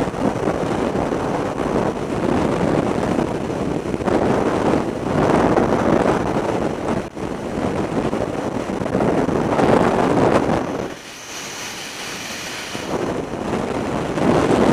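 Freefall wind blasting over the microphone of a skydiver's head-worn camera, surging and easing in waves. It drops to a quieter rush for about two seconds, some eleven seconds in, then builds again.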